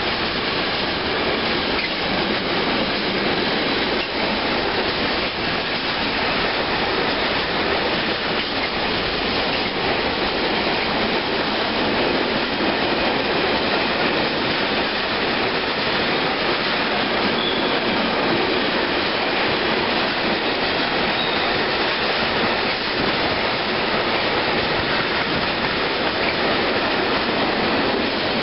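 Container freight wagons rolling past at close range: the steady noise of steel wheels running on the rails.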